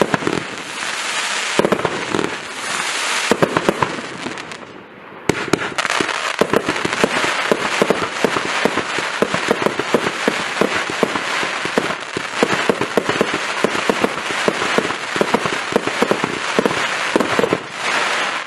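X-Cite Night Ghost compound firework cake firing: shots bursting overhead into a dense, rapid rattle of many small pops from crackling stars. There is a short lull about five seconds in, then the popping resumes just as thickly.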